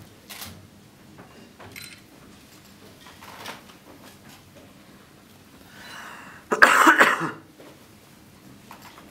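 A person coughing or clearing the throat harshly, one loud rasping burst about two-thirds of the way through, after a few faint breathy sounds.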